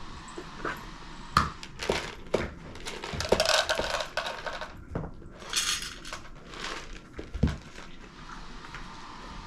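Irregular small knocks and clicks of objects being handled, with two short bursts of rustling noise around the middle.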